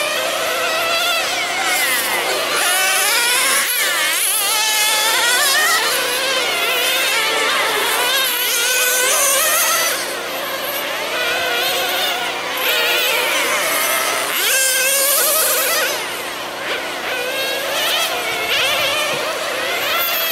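Several nitro RC sedans' small two-stroke glow engines running flat out together. Their high-pitched whines overlap, each rising and falling as the cars accelerate and back off around the circuit.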